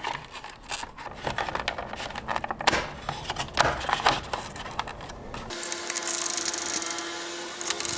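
Plastic clicks, taps and scrapes of a turn-signal housing being slid and snapped into a pickup's side mirror. About five and a half seconds in this gives way to a steady hum with one low held tone.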